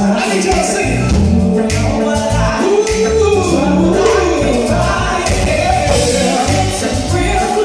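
An R&B song played live by a band, with a pulsing bass and drums under a singing voice that slides through melodic runs.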